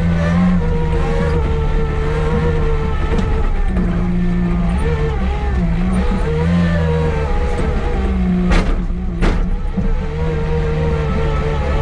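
Komatsu WA40 wheel loader's diesel engine running while clearing snow, its pitch rising and falling as it works. About two-thirds of the way in come two sharp knocks close together.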